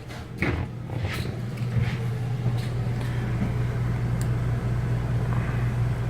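RV air conditioner in the toy-hauler section running, a steady low hum with fan rush that swells over the first two seconds and then holds level. This is the rear unit that is working and blowing cold air. A few light knocks sound in the first two seconds.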